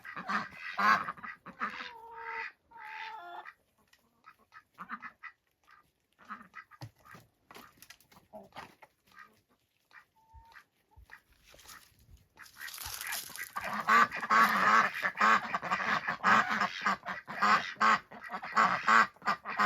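Birds calling: a few short pitched calls at the start, then a quiet stretch, then a dense chorus of many calls over the last third.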